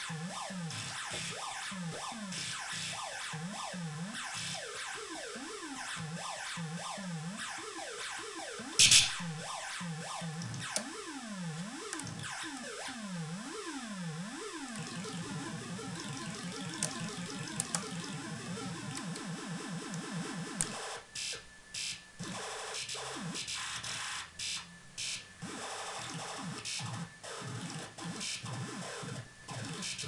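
Modular synthesizer noise from a DIY doorbell sound-chip module run through a filter and delay, recorded through a camera's built-in mic: quick swooping pitch sweeps up and down for the first half, with a loud click about nine seconds in. In the second half it turns into a denser buzzing, noisy texture that keeps cutting out and coming back.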